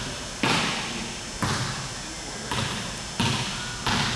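A basketball bouncing on a hardwood gym floor, about five separate bounces roughly a second apart, each echoing through the large hall.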